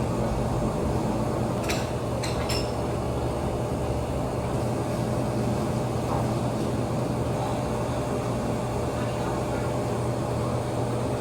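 Steady low mechanical hum of indoor machinery, with a few short clicks about two seconds in.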